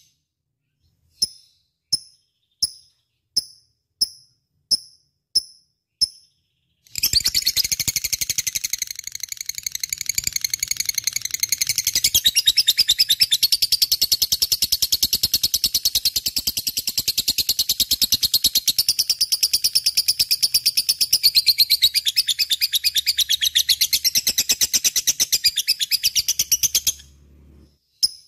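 Lovebird in full song: about eight sharp, high chirps evenly spaced, roughly one every two-thirds of a second, then a long run of fast, unbroken chattering that stops suddenly near the end.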